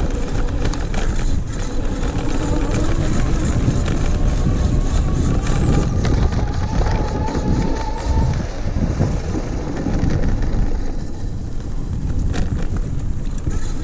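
Electric bike riding fast over a rough, muddy dirt trail: steady rumble from the tyres with frequent rattles and knocks from the bike over bumps. The 48V rear hub motor's faint whine rises in pitch around the middle as it speeds up under throttle.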